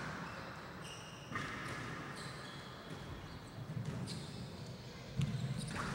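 Squash rally: short high squeaks of court shoes on the floor and a few sharp strikes of racket on ball, all faint.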